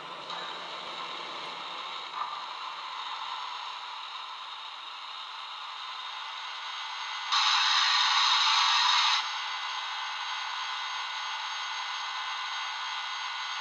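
Sound decoder and small onboard speaker of a Broadway Limited HO-scale 4-6-2 Heavy Pacific model steam locomotive, standing at idle after start-up. It gives a steady steam hiss with a faint whine in it, and a much louder burst of hissing lasting about two seconds, about seven seconds in.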